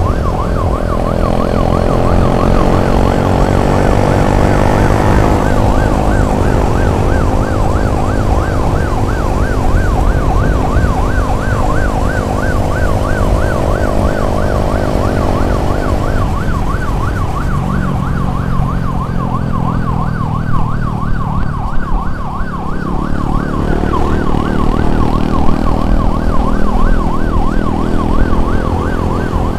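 Ambulance siren on a fast yelp, a tone rapidly warbling up and down without pause, over vehicle engine and road noise that eases off about halfway through.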